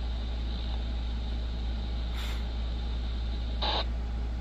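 Steady low hum of room and equipment background noise, with two brief soft noises, one about two seconds in and one shortly before the end.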